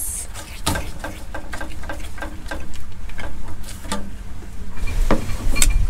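Spoon stirring brigadeiro in a pot: a run of light, irregular clicks and taps against the pan, with a low rumble growing near the end.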